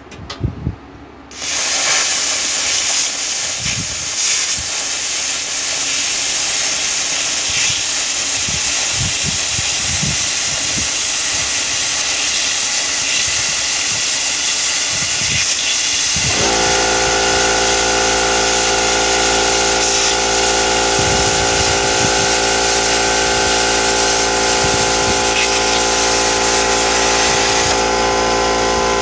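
Air plasma cutter, running at 38 amps on 75 psi air, cutting steel plate: a loud, steady hiss that starts about a second in and keeps going. About halfway through, a steady machine hum with several tones joins it.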